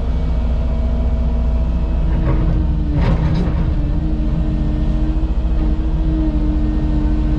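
Cat 310 excavator's diesel engine running steadily under work, with a short burst of noise about three seconds in.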